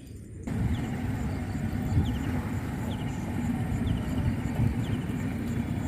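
A steady low engine rumble that starts abruptly about half a second in.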